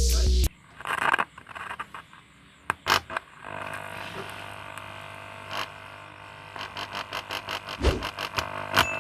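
Music with a heavy bass cuts off about half a second in. A few sharp clicks follow. From about three and a half seconds a steady low hum sets in, with faint rhythmic beats growing stronger near the end.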